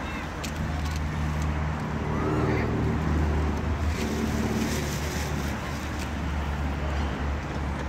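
A motor vehicle's engine running with a low steady hum, growing louder about two seconds in and easing after about five seconds, with a few short high calls over it.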